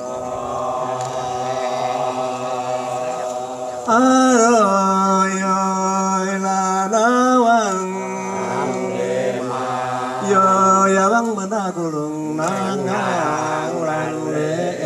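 Traditional Dayak Kenyah chanted singing: long held notes on a steady pitch, with ornamented swells that rise and fall about four and seven seconds in and again later.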